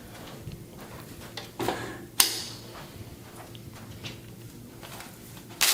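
A few short, sharp clicks and knocks from handling during a chiropractic adjustment, the loudest about two seconds in, then a brief loud burst right at the end.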